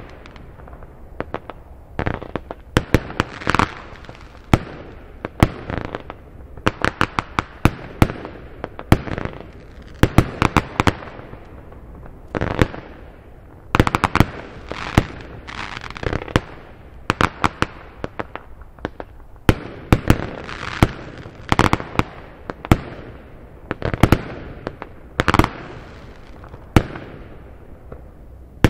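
WECO consumer firework battery firing shot after shot: launches followed by sharp bangs and clusters of crackling reports, repeating every second or two.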